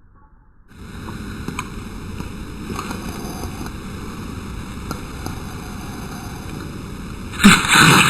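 A dog sneezes once, short and loud, near the end, over a steady rushing noise like wind or a moving vehicle.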